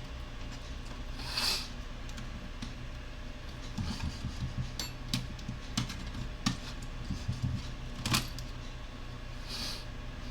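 Small clicks and taps of laptop parts and tools being handled during disassembly, with the sharpest click about eight seconds in, over a steady low hum. Two short hisses come about a second and a half in and near the end.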